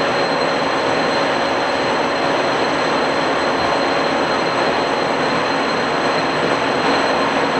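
Monarch 18 CBB engine lathe running empty at its top spindle speed of 487 RPM: a steady whir from the headstock with a thin, steady high whine.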